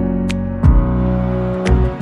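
Slow instrumental background music: held low notes that change about once a second, with a few light high ticks.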